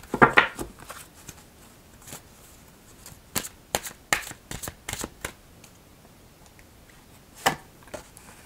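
Angel Answers oracle cards being shuffled and handled: a quick flurry of card clicks at the start, a run of sharp card snaps and flicks from about three to five seconds in, and one more snap near the end.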